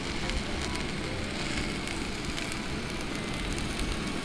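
Chicken and pork kebabs sizzling in a frying pan: a steady hiss with small crackles.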